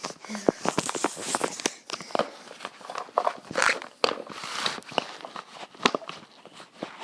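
Hands handling Play-Doh and small plastic tools on a hard surface: irregular clicks, taps and rustles.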